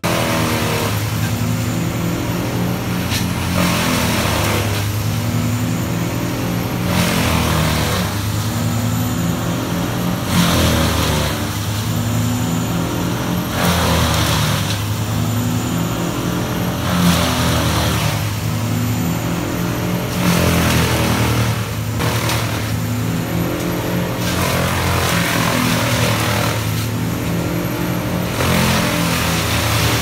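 Trailer-mounted wood chipper running steadily under load, its engine hum joined about every three and a half seconds by a swell of grinding noise as branches are fed in and shredded into chips.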